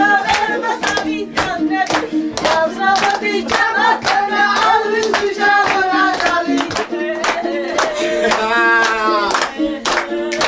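A group singing a lively dance song to steady hand-clapping, about two to three claps a second, over a held low drone note.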